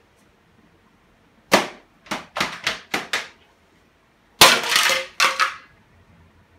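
Aerosol shaving-cream can spraying in short, sharp spurts: one about a second and a half in, a quick run of five, then two longer, louder spurts near the end.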